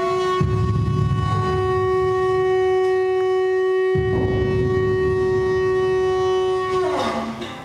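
A single loud held note with many overtones, sustained at one steady pitch for about seven seconds, then sliding downward near the end, over a low rumbling noise.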